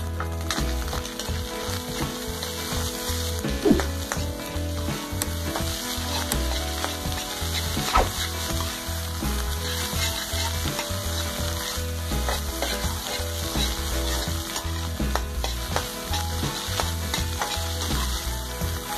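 Fried rice sizzling in a wok while a metal ladle stirs and tosses it, scraping and clacking against the pan. Two sharper knocks of the ladle on the wok stand out, about four and eight seconds in.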